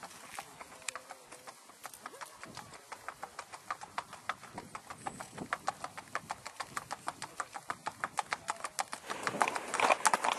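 Hoofbeats of a Rocky Mountain Horse mare on paved road, a steady run of crisp clip-clops in her smooth four-beat gait. They grow louder as she comes closer, and a broader rushing noise joins in near the end.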